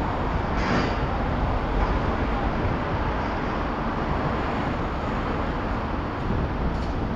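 Road and wind noise from a car driving in traffic, picked up by a camera mounted on the outside of the vehicle: a steady rushing noise over a low rumble, with a brief hiss just under a second in.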